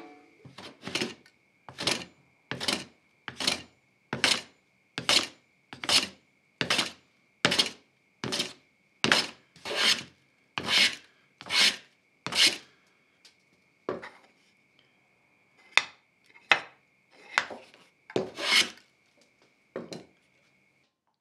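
Hand plane swishing along a wooden board, one stroke a little more than once a second for about twelve seconds, then a few scattered strokes, as the board is flattened. A faint steady high tone sits behind it.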